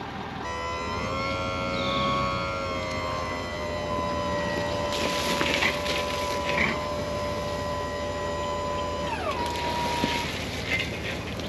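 A steady mechanical whine from the hay-bed truck as it unrolls a round bale. It holds one pitch, then falls away and stops near the end. Bursts of rushing noise come partway through and again near the end.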